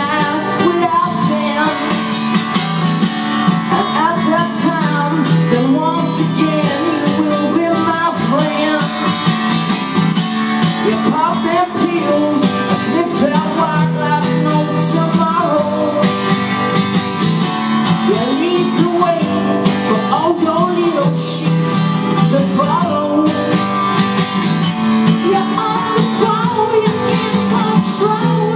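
Acoustic guitar strummed steadily while a man sings a song.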